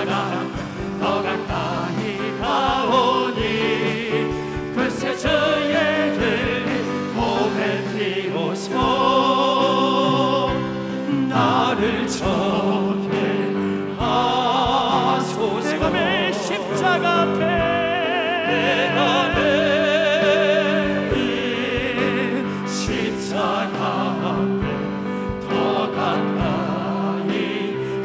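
A church praise team of mixed male and female voices sings a Korean worship song into microphones with vibrato. An electronic keyboard holds sustained chords underneath.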